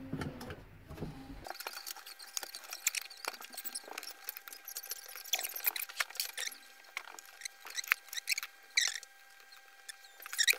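Small clicks, scratches and short squeaks of hands and pliers working on a circuit board and its component leads, irregular throughout. A faint steady tone sits underneath.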